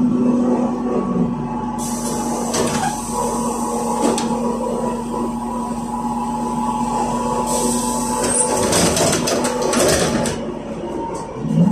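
Inside a ZiU-682G trolleybus under way: the DK-213 traction motor whines steadily over the running noise. Hiss swells twice, and there is a run of rattling near the end.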